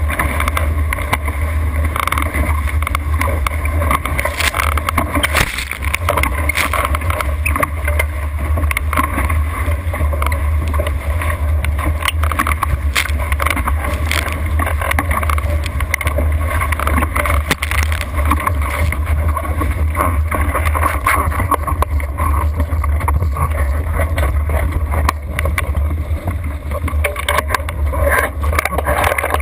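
Wind buffeting the microphone with a steady low rumble over water rushing and spraying past the hull of a catamaran sailing at speed, with frequent small splashes.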